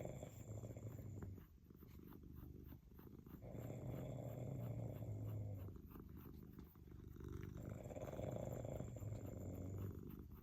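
A cat purring while being brushed, mixed with a sleeping person's snoring. The sound swells and eases with slow breaths about every four seconds, three times.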